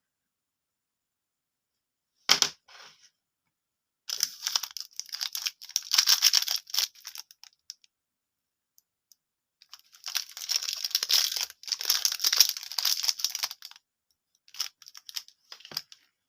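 Plastic candy wrappers being torn open and crinkled. There is a sharp click about two seconds in, then two spells of crackling tearing lasting a few seconds each, and a few small ticks near the end.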